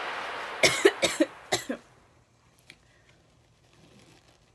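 A woman coughing hard, about five quick coughs in a row, choking on food while eating.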